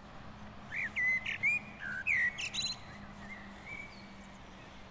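Songbirds chirping: a quick run of short, sweeping chirps and a brief rapid trill, busiest in the first three and a half seconds and fainter after, over a faint steady low hum.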